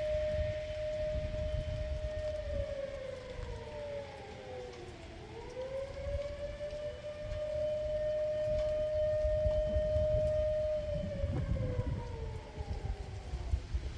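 Outdoor civil-defence warning siren sounding from afar: a held wailing tone that dips in pitch and winds back up about five seconds in, holds again, then falls away near the end, over a low rumble. It sounded with no announced alert, and local officials put it down to a malfunctioning school alarm.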